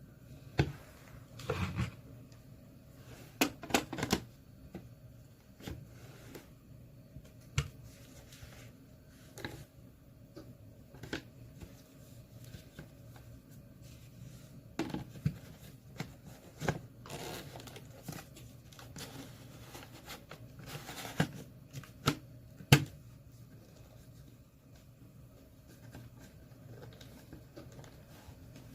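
Parts of a cordless vacuum cleaner being handled and fitted together: rustling with scattered sharp plastic clicks and knocks, the loudest about three quarters of the way through.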